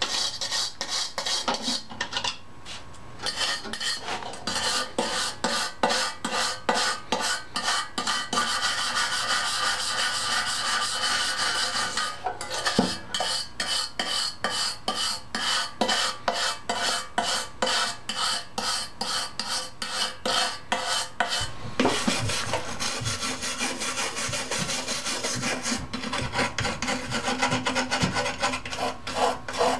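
Small toothbrush-style brass wire brush scrubbing a rusty metal kerosene lantern in quick, rhythmic back-and-forth strokes, flaking off rust that a molasses bath has loosened.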